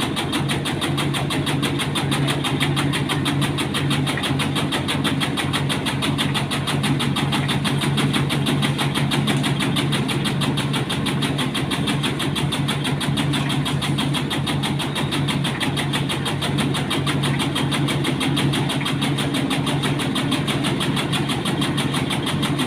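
Small engine of a tobacco shredding machine running steadily at an even speed, with a rapid, regular pulse and a low hum.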